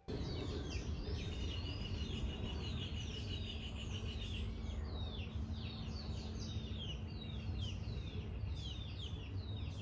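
Outdoor birdsong: many birds chirping, with rapid downward-sweeping calls, over a steady low rumble. A thin high steady tone sounds through the first half, and a higher one through the second half.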